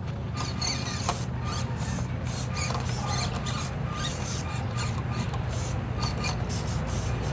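Axial SCX24 Deadbolt 1/24-scale RC crawler climbing rocks: its small electric motor and gears whine in short throttle pulses, with clicks and scrapes of tyres and chassis on rock.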